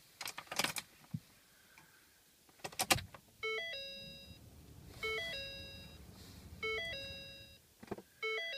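A 2012 Ford Fusion's dashboard warning chime, a short stepped run of tones that repeats four times about every second and a half after the key is turned on. It follows a few mechanical clicks from the ignition, and a low hum comes up under the first chimes and fades.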